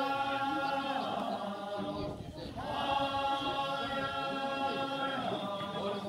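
Kiyari, the Japanese festival work chant, sung by several voices in long held notes. A phrase breaks off about two seconds in, and a second long phrase follows.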